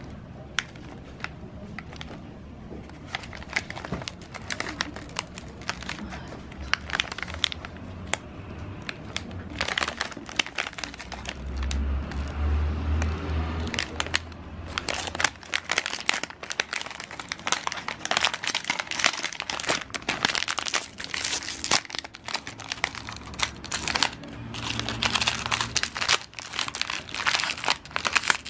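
Plastic snack bag crinkling and rustling in irregular bursts as it is handled, busier in the second half, over quiet background music.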